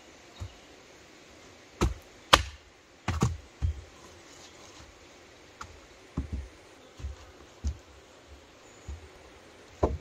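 Wooden slats or poles knocking against one another and the bed frame as they are laid down for a bush bed: about ten irregular wooden knocks, the loudest a little over two seconds in.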